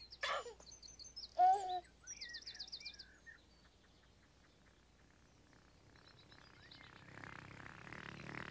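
A baby giggling and cooing in two short bursts, then quick high bird chirps. Near the end, soft music swells in, growing louder.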